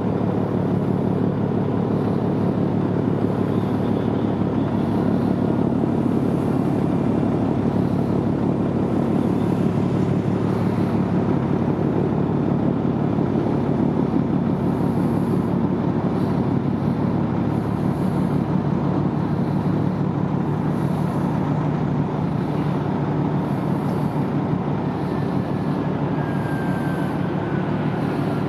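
Large RO-RO cargo ship's engine machinery running as it manoeuvres away from the quay: a loud, steady low drone with several held hum tones.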